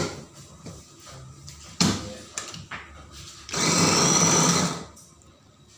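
Electric mini food chopper with a glass bowl running in one burst of just over a second, chopping greens, started by pressing down on its motor top. A couple of sharp knocks come before it as the motor unit is handled.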